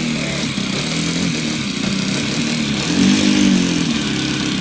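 Nitro glow engine of a radio-controlled Seagull Edge 540 model plane running steadily. Its pitch swells up and falls back twice, about a second in and again near three seconds.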